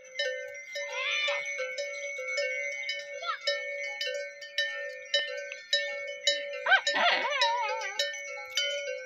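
Many goat bells clanking and ringing continuously as a grazing goat herd moves, with goats bleating about a second in and more loudly, with a wavering falling call, around seven seconds in.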